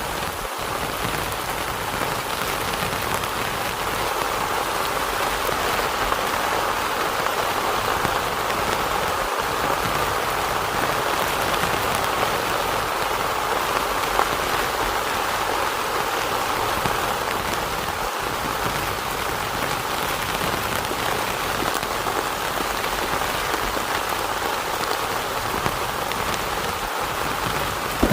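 Heavy rain falling steadily on a tent.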